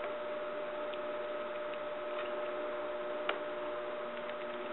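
A steady electrical hum with a few faint clicks, the sharpest about three seconds in.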